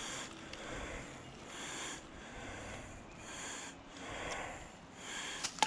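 A person breathing heavily near the microphone, a run of noisy breaths about a second apart, with a sharp click near the end.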